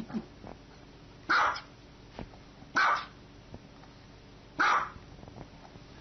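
A small dog barking: three short barks, evenly spaced about a second and a half apart.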